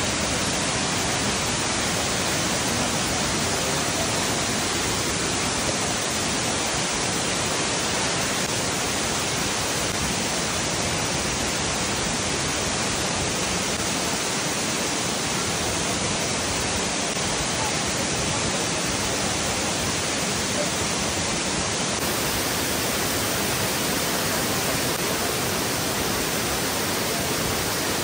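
Amicalola Falls, a 729-foot cascading waterfall, rushing steadily: an even, unbroken noise of falling water.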